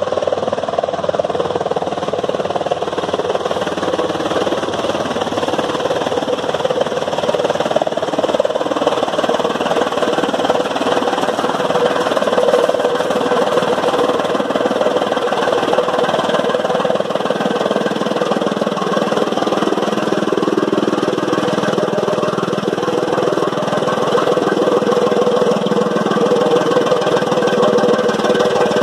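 A tractor-driven chaff cutter running at full speed while dry fodder stalks are fed in and chopped, with the tractor's engine under load: a loud, steady mechanical din with a constant hum.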